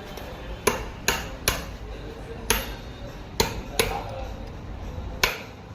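Hammer blows: about seven sharp strikes at uneven intervals, the loudest about a second in and near the end.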